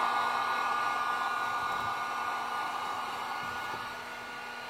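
Heat gun blowing steadily with a faint whine, slowly getting quieter toward the end, while it heats the bumper cover to soften it so it can be reshaped.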